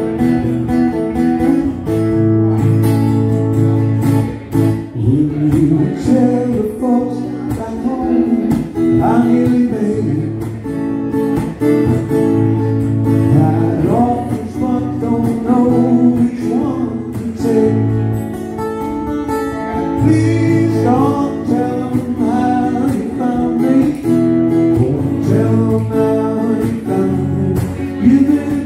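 A male voice singing a song over a strummed acoustic-electric guitar, played live.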